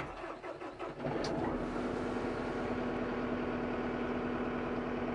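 Kubota M5-091 tractor's four-cylinder diesel engine cranking briefly and catching about a second in, then idling steadily with a constant low hum, heard from inside the cab.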